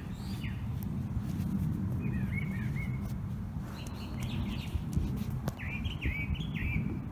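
Birds calling in three short runs of quick, wavering high chirps, about two, four and six seconds in, over a steady low rumble.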